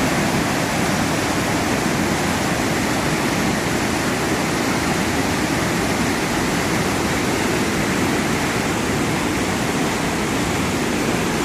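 Waterfall running high after heavy rain: a loud, steady rush of falling water.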